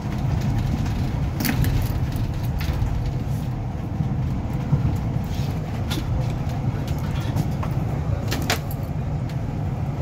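London double-decker bus driving, heard from the upper deck: a steady low rumble of engine and road noise, with a few short rattles and clicks from the bodywork.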